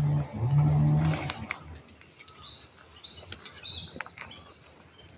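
A cow lowing: a low, drawn-out moo in two parts in the first second or so. It is followed by a few short high chirps and light knocks.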